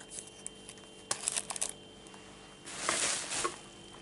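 Plastic packaging crinkling and rustling as plastic-wrapped orchid pots are handled: a quick run of crackly clicks about a second in, then a longer rustle near the end.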